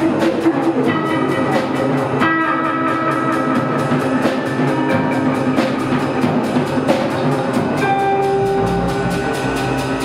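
Live rock band improvising: a drum kit keeps a steady, fast beat under electric guitars holding long notes that shift every few seconds.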